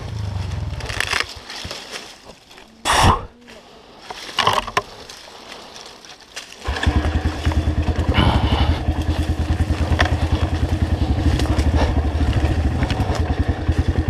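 Dirt bike engine running briefly, then stopped for several seconds while a few loud rustling, scraping noises come and go; about two-thirds of the way through the engine starts abruptly and settles into a steady, pulsing idle.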